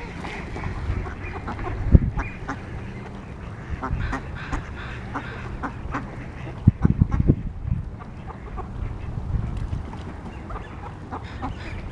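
A flock of mallards quacking, with many short calls scattered throughout. A low rumble runs under them, and heavy bumps hit the microphone about two seconds in and again around seven seconds.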